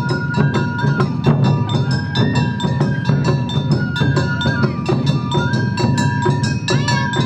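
Awa Odori festival band playing: a bamboo flute melody over rapid drumming and the bright clang of small hand gongs, in a quick, steady rhythm.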